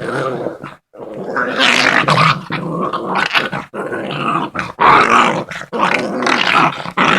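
Pit bull puppies growling while they play-fight, in near-continuous bouts broken by short pauses.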